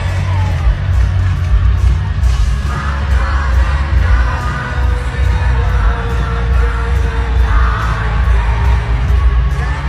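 Live band playing a pop-rock song through a stadium PA, with heavy bass and a steady beat, and a male singer's voice over it.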